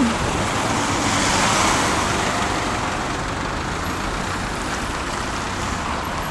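City street traffic: a steady noise of passing cars, swelling as a vehicle goes by about a second in.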